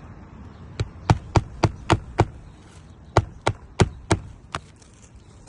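Hammer driving roofing nails into an asphalt shingle: two runs of quick, evenly spaced blows, about six then five.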